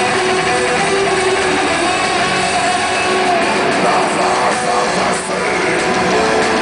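Live melodic death metal band playing loud, with electric guitars over drums, heard from the audience floor.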